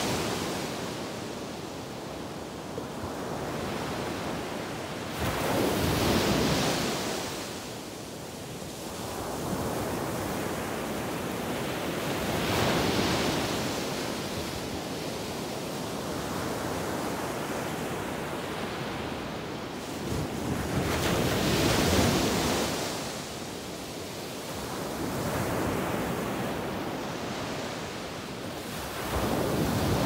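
Ocean surf breaking on a beach: a steady wash of water that swells into loud rushes as each wave crashes, about four times, several seconds apart.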